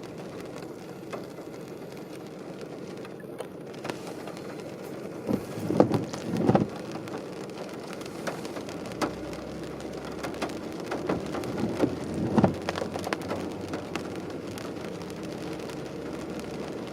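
Rain pattering on a moving car's windshield and roof, heard from inside the cabin as a steady hiss of many small drop clicks. A few louder knocks come about five to six seconds in and again near twelve seconds.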